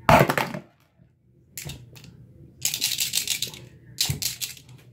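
Plastic airsoft BBs rattling and clicking against an orange plastic pill bottle and the sink as the partly thawed clump is worked loose: a loud knock at the start, then two runs of rapid clicking, the first about a second long in the middle and a shorter one near the end.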